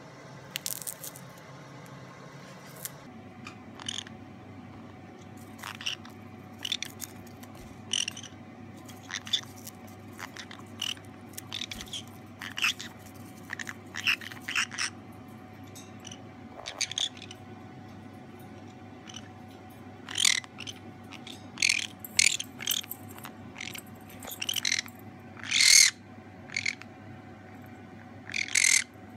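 Pet conures eating popcorn: irregular short crunches and pecks mixed with soft chirps, the contented 'happy noise' these parrots make while eating. The chirps grow louder toward the end.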